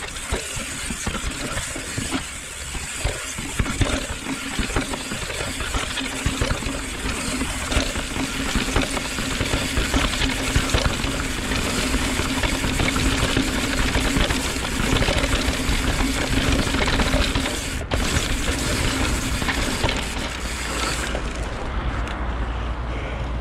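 Mountain bike rattling and clattering down a rocky dirt trail, heard from a handlebar-mounted camera: tyres crunching over dirt and stones, with constant small knocks and rattles from the chain and frame. Near the end the clatter gives way to a duller, steadier sound.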